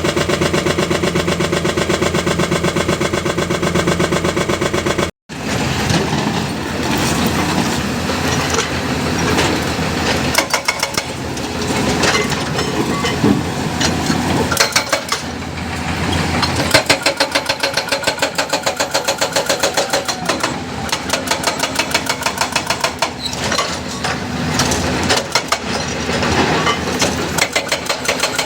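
Hyundai hydraulic excavator's diesel engine running. About five seconds in it cuts abruptly to a rougher stretch with evenly repeating pulses.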